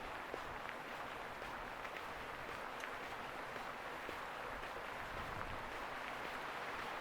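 Steady outdoor street ambience, an even wash of noise with faint scattered clicks.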